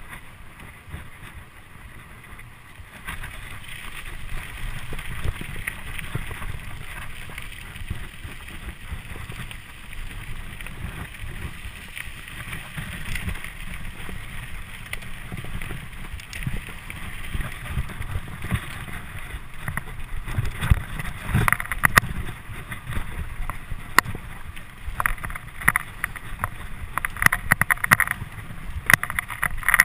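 Mountain bike ride heard from the bike: wind buffeting the microphone and knobby tyres rolling over pavement and gravel. In the last third, as the bike runs over rough forest trail, frequent sharp clicks and rattles from the bike shaking over the ground.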